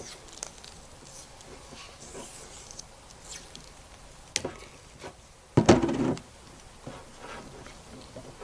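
Vinyl electrical tape being pulled off the roll and wrapped under tension around a cable connector: faint crackles and small clicks. A sharp click comes a little past halfway, then a loud half-second burst of tape noise.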